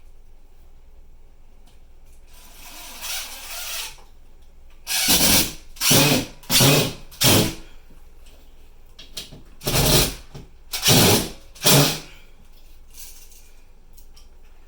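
A tool worked in short, loud bursts, about half a second each: four in quick succession, a pause, then three more, after a softer stretch of scraping hiss near the start.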